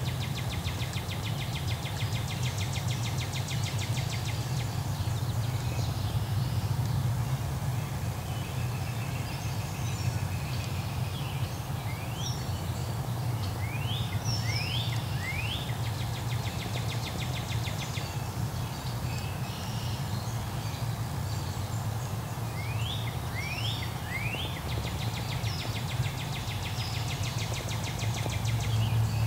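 Outdoor ambience: a steady low rumble with birds calling over it. The calls are short rising whistles in groups of three and stretches of fast, even trills, with scattered small chirps.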